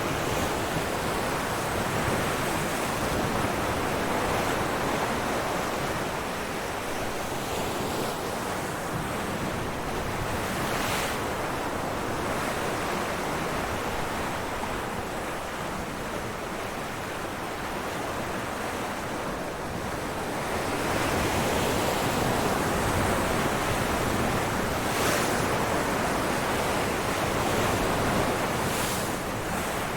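Ocean waves breaking on rocks in a continuous wash of surf that swells and recedes. It grows louder about two-thirds of the way through.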